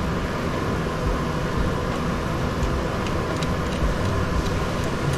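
Steady mechanical hum and hiss with a faint held tone, like a running fan or machine, with a few faint light ticks a little past halfway.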